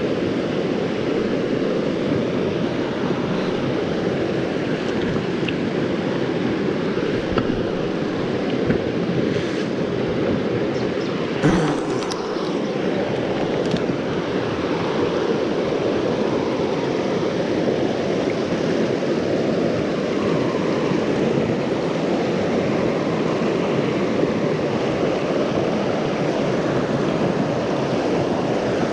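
Steady rush of flowing river water, with a faint knock about eleven and a half seconds in.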